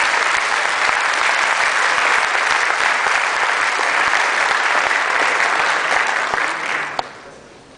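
Audience applauding, a dense steady clapping that fades away about a second before the end.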